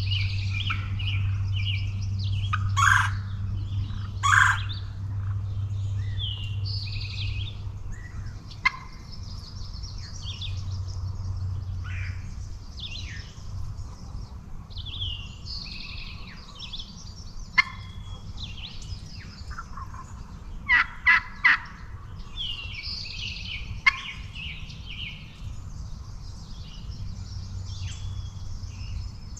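Wild turkeys gobbling over a steady chatter of songbird chirps: two loud gobbles in the first five seconds and a quick run of three about twenty-one seconds in, with a few sharp clicks in between.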